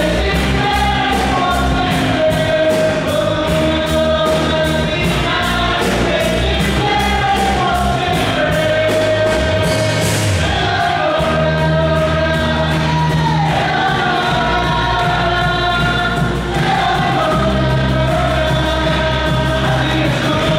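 Live Christian worship music in Spanish: a band plays a steady beat with bass while many voices sing the melody together.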